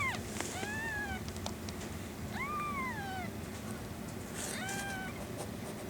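Newborn kittens mewing: three short, high mews, each rising and then falling in pitch.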